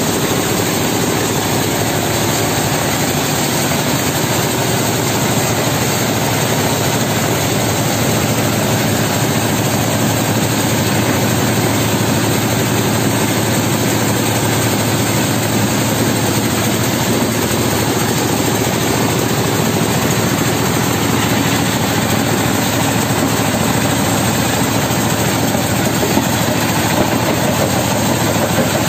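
Belt-driven stone crusher and its stationary engine running steadily as rock is fed in, with an even, unbroken mechanical noise.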